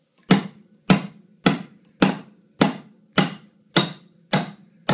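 Claw hammer driving a nail into 2x4 wood blocking: a steady run of about nine sharp blows, a little under two a second, each with a short ring. The many blows fit the father's reading that the nail is being driven into a knot in the wood.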